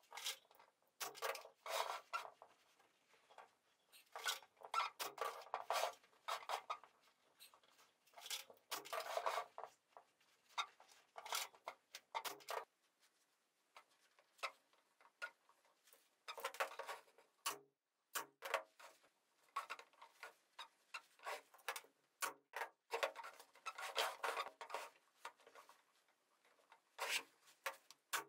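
Velvet upholstery fabric rustling and rubbing in irregular bursts as it is pulled and smoothed by hand over a padded ottoman, with a few short sharp clicks in between.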